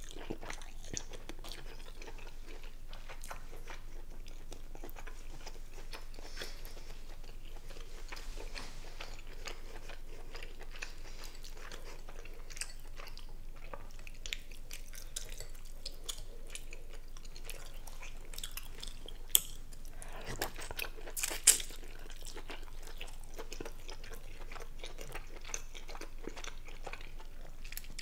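Close-miked chewing and lip smacking on a saucy seafood boil of shrimp and king crab meat, with small wet clicks throughout and a few louder sharp smacks about two-thirds of the way through.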